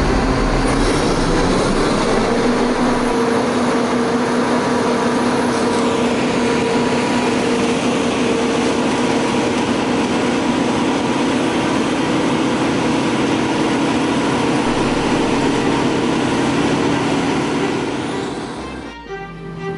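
A John Deere combine harvester runs and drives off as a dense mechanical din with a steady hum and whine. Its note rises over the first couple of seconds as it pulls away, then holds steady, and it fades near the end.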